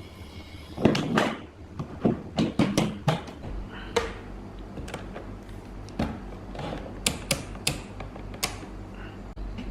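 Irregular sharp clicks and knocks of tools and small parts being handled during amplifier repair work, over a steady low hum that starts about a third of the way in.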